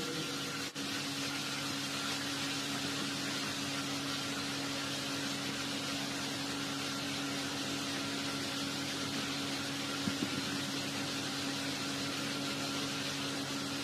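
Steady background hiss with a low, even hum, like room tone from a fan or the recording equipment. A couple of faint ticks come about ten seconds in.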